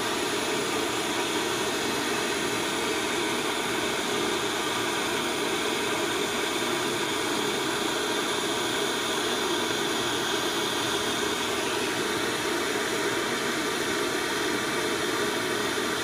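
Gas torch burning steadily with an even hiss of flame and gas.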